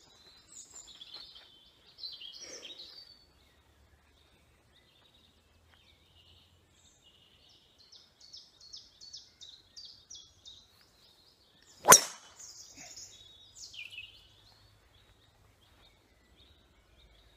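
A driver strikes a golf ball off the tee with one sharp, loud crack about two-thirds of the way through. Small birds chirp and twitter before and after the shot.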